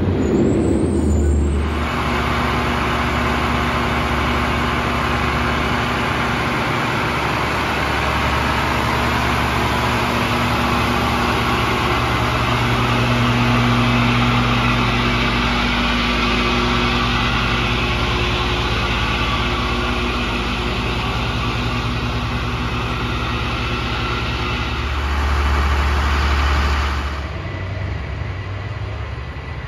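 Diesel engine of a fire truck running steadily close by: a low rumble with a broad hiss over it, swelling briefly near the end before easing off.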